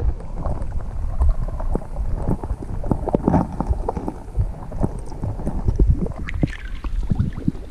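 River water sloshing and bubbling around a camera held just under the surface: a muffled, steady low rumble with many scattered clicks and crackles.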